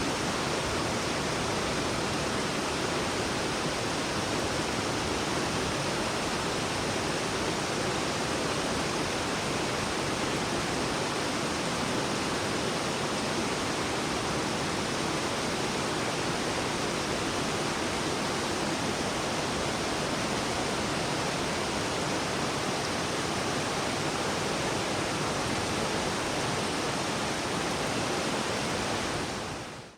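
A river flowing, its water rushing in a steady, even wash that fades out in the last second.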